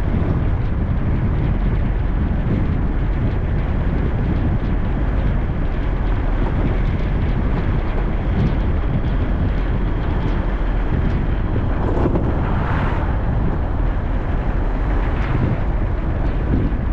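Steady road noise of a car driving: low tyre and engine rumble with wind on the microphone. A brief louder hiss rises and fades about twelve seconds in.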